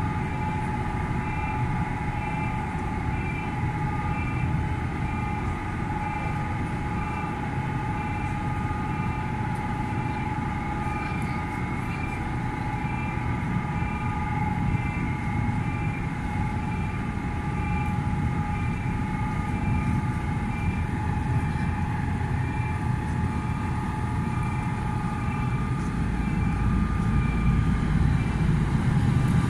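Ro-ro ferry MV Isle of Lewis lowering its bow visor shut, its machinery giving a steady droning hum with a low rumble. A higher tone pulses about twice a second through the first half, and the low rumble grows louder near the end.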